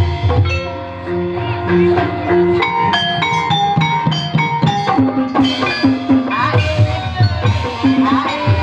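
Gamelan ensemble accompanying an ebeg dance: struck metallophone keys play a steady repeating melody over a driving drum pattern.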